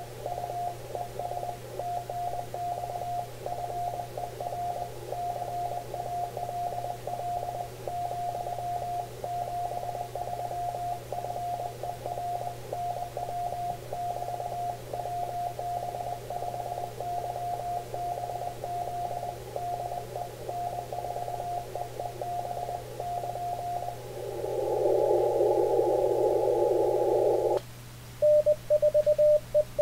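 Morse code received on an Icom IC-7300 tuned to 40 metres: a single tone keyed at about 20 words per minute over band hiss narrowed by a 500 Hz filter. The other station is sending its sign-off, "73, thanks for the call". The keying stops a few seconds before the end and the hiss swells. Then the rig's own sidetone, a slightly lower and louder tone, starts sending Morse as the operator's keyboard reply goes out.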